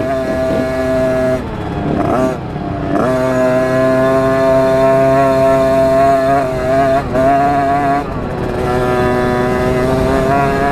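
KTM 50 SX's small two-stroke single-cylinder engine running at a steady high pitch while riding. The throttle eases off briefly about a second and a half in and again near eight seconds, the pitch dropping and then winding back up each time.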